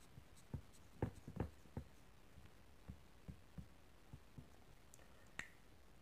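Faint, irregular soft knocks and rubs from a whiteboard being wiped clean with a duster, with a sharper click near the end.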